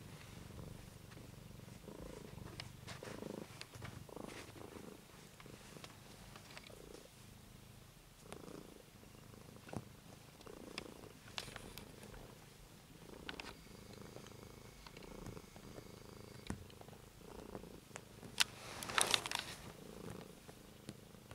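Domestic cat purring steadily right at the microphone, the purr swelling and fading with each breath in and out. A few soft clicks, and a brief louder rustle near the end.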